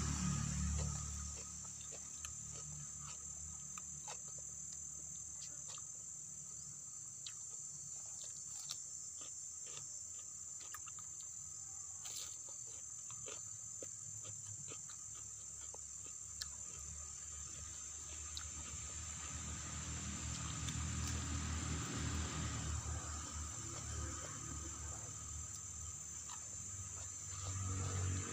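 Insects, crickets or cicadas, chirring in a steady high-pitched drone, with scattered faint clicks and a soft low rumble that grows louder in the second half.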